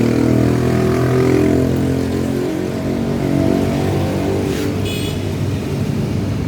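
Yamaha RX-King's single-cylinder two-stroke engine running steadily, easing a little in level after about two and a half seconds.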